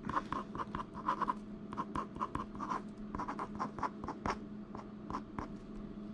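Pen writing block capitals on a sheet of paper: a quick, irregular run of short pen strokes, with a faint steady hum underneath.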